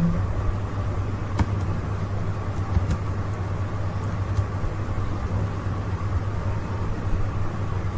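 Steady low hum with background noise, and a few faint clicks of keyboard typing.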